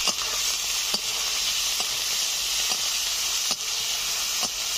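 Tomatoes, green chillies and onions sizzling in hot mustard oil in a karahi, a steady frying hiss. A flat spatula scrapes and knocks against the pan about once a second as the mixture is stirred.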